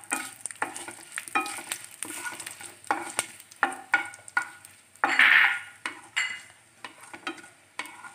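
Mustard seeds and dried red chillies being stirred with a wooden spatula in hot coconut oil in a pan, sizzling with frequent sharp, irregular crackles. There is a louder burst of sizzle about five seconds in. This is the tempering stage, after the mustard seeds have spluttered.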